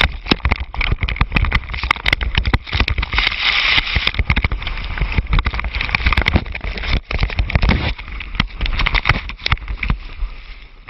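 Rush of snow and wind buffeting a helmet camera's microphone as the camera tumbles in sliding avalanche snow, with a dense run of knocks and crackles on the camera; it eases off near the end.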